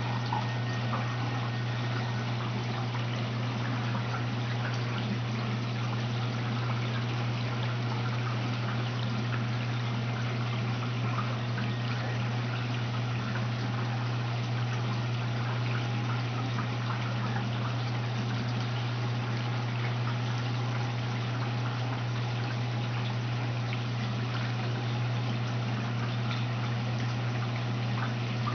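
Aquarium pump and filter running: a steady low hum with water trickling over it.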